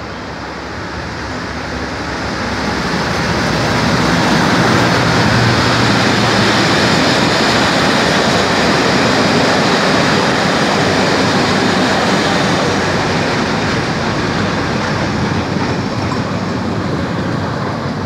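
Class 37 diesel-electric locomotive, with its English Electric V12 engine, passing at speed at the head of a test train, followed by its coaches' wheels running over the rails. The sound builds over the first few seconds, is loudest as the locomotive passes, and eases a little near the end.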